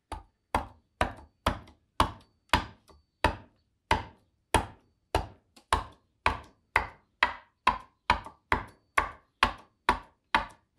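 A bowl adze chopping into a green black walnut bowl blank in short, quick strokes, about two sharp blows a second.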